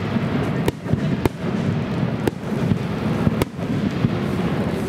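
Starmine fireworks display: aerial shells being launched and bursting in rapid succession. Four sharp bangs about a second apart stand out over a continuous rumble and crackle.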